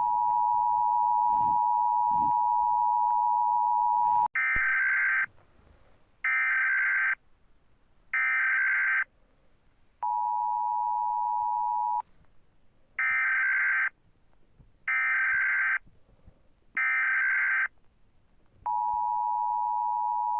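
Emergency Alert System two-tone attention signal held for about four seconds. Then come three one-second screeching bursts of SAME digital header data, a two-second burst of the attention tone, three more data bursts, and another two seconds of the attention tone.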